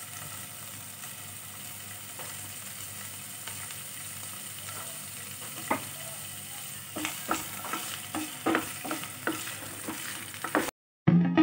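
Paneer cubes sizzling in oil in a nonstick pan, a steady hiss. From about seven seconds in, a wooden spatula scrapes and taps against the pan as it stirs them. Right at the end the sound cuts out and guitar music starts.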